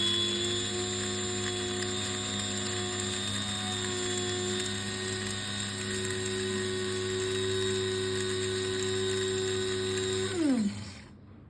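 Moulinex electric grinder motor running steadily with a whine while grinding dried thyme. About ten seconds in it is switched off and the motor winds down, its pitch falling, followed by a couple of faint clicks.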